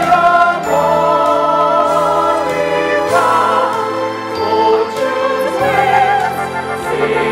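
A musical-theatre cast chorus of men's and women's voices singing together, holding long notes with vibrato.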